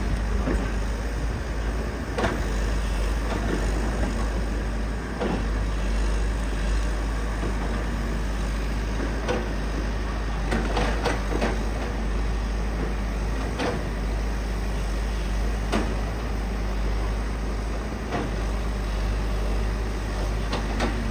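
Excavator engine running steadily with a deep rumble, with scattered knocks and clanks, a quick cluster of them about ten seconds in.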